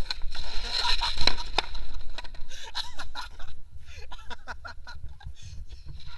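Skateboard on asphalt: several sharp clacks of the board hitting the ground in the first two seconds as the rider falls, then quieter scuffing.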